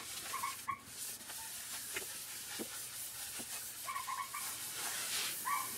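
Terry-cloth towel rubbed back and forth over a bare wood slab, a steady scratchy hiss with light knocks, and a few short high-pitched chirps scattered through it.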